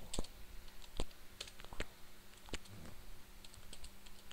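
Quiet, irregular keystrokes on a computer keyboard, separate clicks with short pauses between them.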